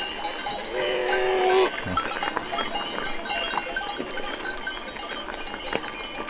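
A goat bleats once, about a second long, over the steady clinking of the herd's neck bells.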